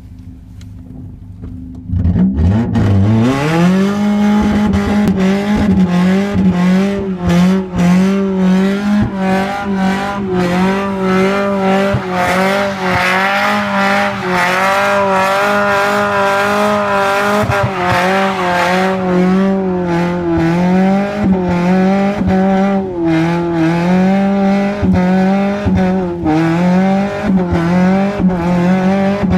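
Toyota Tercel's four-cylinder engine idling, then revved hard about two seconds in and held at high revs with a wavering pitch for a burnout, with tyre-spin noise.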